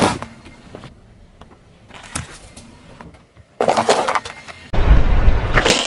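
A car tyre rolling over and crushing small objects on asphalt. After a quiet stretch with a few faint clicks, there is a burst of crunching and crackling about two-thirds of the way in as a small packet is flattened, then a louder rumbling stretch with sharp cracks near the end.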